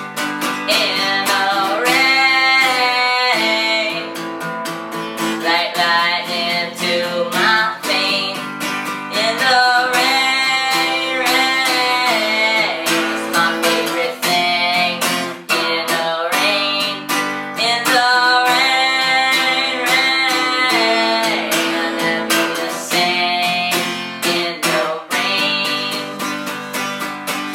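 Song with strummed acoustic guitar chords under a melody line that bends in pitch, with no clear lyrics.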